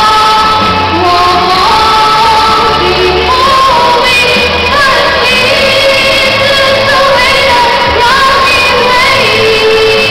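A woman singing a Chinese song solo into a handheld microphone over instrumental accompaniment, holding long notes that slide between pitches.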